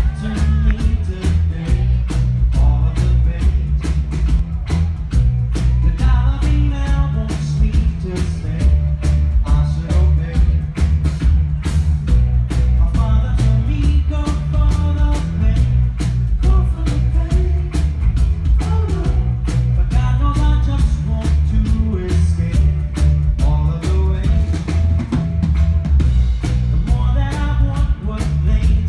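Live band playing a song: heavy bass and keyboards over a steady drum beat, with a man singing into a microphone in phrases.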